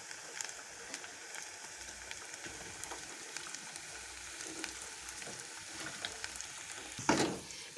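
Food sizzling as it fries in hot oil in a cooking pot, a steady hiss with small scattered crackles. A brief louder swish comes near the end.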